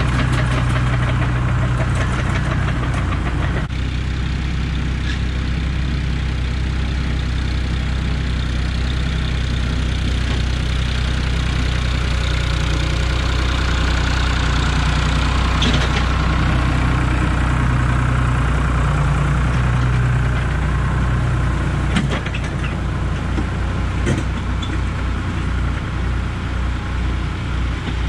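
Diesel tractor engines running steadily: a Farmtrac 60 with a front blade working close by, and a Kubota M6060 pushing a loader bucket full of dirt. From about 22 seconds in the low engine note throbs as the Kubota comes closer under load.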